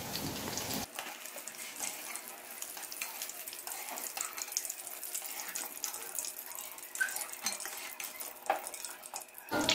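Battered chicken strips frying in hot oil in an aluminium kadai: a steady, faint sizzling hiss with fine crackles as the pieces are lifted out. A couple of light knocks near the end come from the metal spoon on the pan and strainer.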